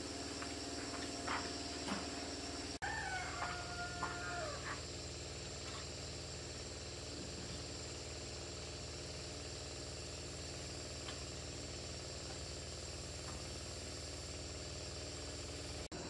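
A rooster crows about three seconds in, over a steady low hum and a steady high-pitched drone.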